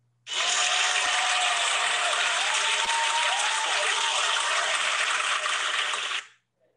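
Applause, starting abruptly just after the winner is named and cutting off after about six seconds.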